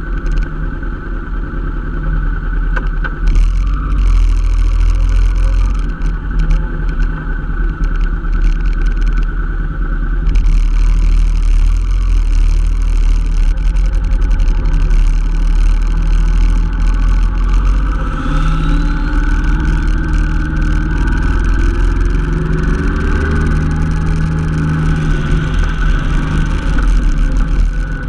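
Motorcycle riding, heard from on board: the Honda NT700V Deauville's V-twin engine under a heavy wind rumble on the microphone. The engine note climbs steadily for several seconds in the second half as the bike accelerates.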